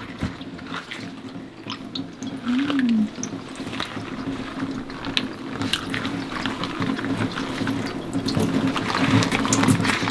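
Water running from a kitchen tap into a sink, with small clicks and knocks of things being handled in it.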